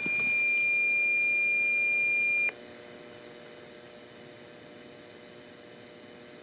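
A weather alert receiver's alarm sounding as one steady, high beep that cuts off suddenly about two and a half seconds in, leaving a low hum.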